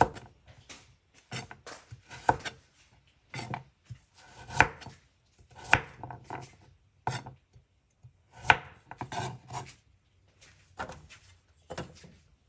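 Kitchen knife slicing carrot on a wooden cutting board: single sharp cuts through the carrot and onto the board, at an uneven pace of about one a second.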